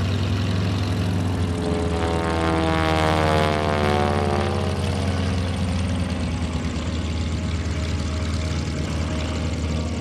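North American SNJ-6 Texan's Pratt & Whitney R-1340 radial engine and propeller running at power during aerobatics. The drone swells as the plane passes, loudest about three to four seconds in, then eases slightly.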